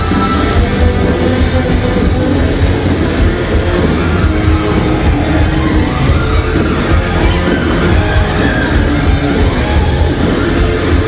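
Hard rock band playing live in concert: distorted electric guitars over bass and drums, loud and continuous.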